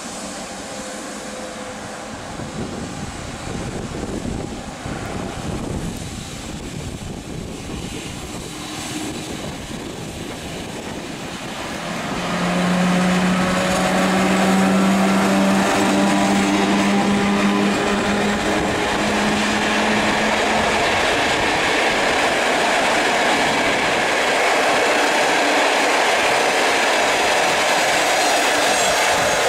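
PKP Intercity EP09 electric locomotive approaching with a passenger train, then passing close by from about twelve seconds in. There is a steady hum as the locomotive goes by, then a loud steady rush and clatter of coach wheels on the rails.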